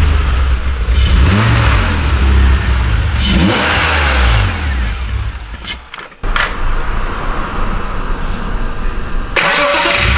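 BMW M54B30 3.0-litre straight-six running with no air filter fitted and being blipped, the revs rising and falling. The sound drops away just before the halfway mark, comes back abruptly, and gets louder again near the end.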